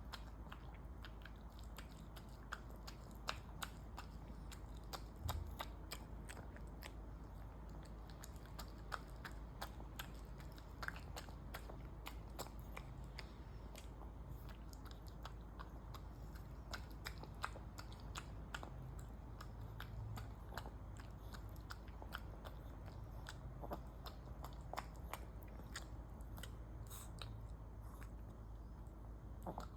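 An old Maltese dog eating, with irregular small crunching clicks of chewing, a few a second, throughout.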